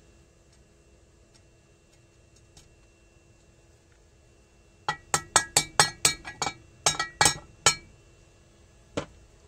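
A quick run of about fourteen sharp metal clinks, then one more near the end, starting about halfway in: a steel socket used as a drift, tapping a new ball bearing home into the heated aluminium casing of a Derbi AM6 engine.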